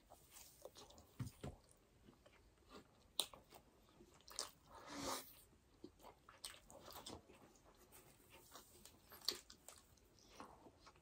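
Faint close-up chewing and wet mouth clicks of two people eating burger steak in gravy with rice by hand, with a couple of sharper clicks and one longer, softer mouth sound about five seconds in.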